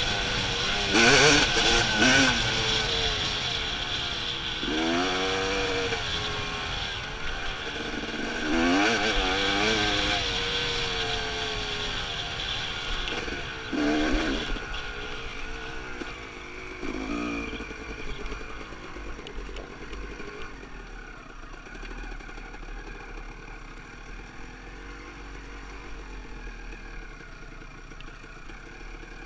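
Dirt bike engine revving in repeated surges as it is ridden along a rough dirt track, the pitch climbing and dropping with each twist of the throttle. After about 18 seconds the engine falls to a quieter, steady low running as the bike slows.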